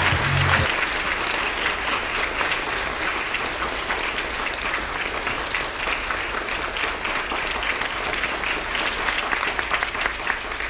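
Audience applause: a dense, steady spread of many hands clapping. A thumping music beat cuts off just after the start.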